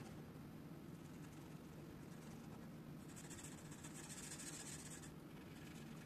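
Felt-tip marker rubbing on a paper card as small leaf shapes are coloured in: a faint hiss of pen strokes, louder for about two seconds past the middle.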